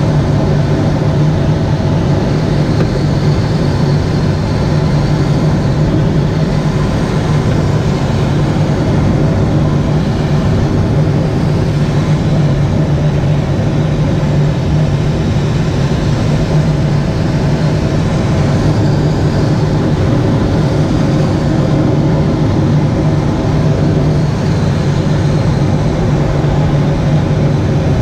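Steady drone of a tow plane's engine with rushing airflow, heard from inside a glider's cockpit while it is towed aloft; a low hum holds unchanged throughout.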